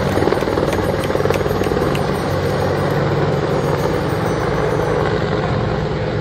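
Helicopter in flight: a steady, rapid rotor beat over the drone of its engine.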